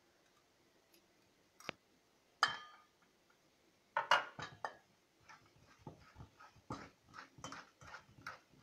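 A metal spoon clinking against a stainless steel bowl, with a ringing clink about two and a half seconds in and a cluster of clinks near the middle, then stirring and scraping in quick repeated strokes as soft butter is mixed into thick minced chicken liver.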